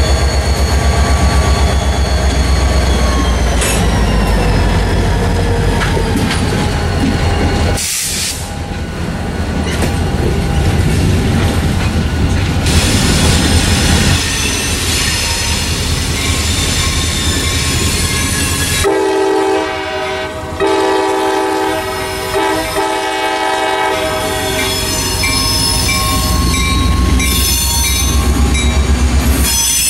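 Diesel road-switcher locomotive passing close with its engine running and wheel flanges squealing in a falling high whine. After a sudden change about eight seconds in, an approaching train sounds a multi-chime air horn for several seconds past the middle.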